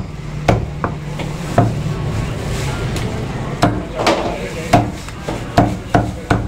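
Butcher's cleaver chopping chicken pieces on a chopping block: sharp single chops at uneven intervals, a pause of about two seconds in the middle, then a quicker run of chops.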